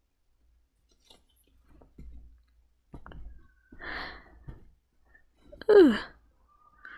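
A person's voice sighing. A breathy exhale comes about four seconds in, then a louder voiced sigh falling in pitch at about six seconds, with faint rustling of plush toys being handled between.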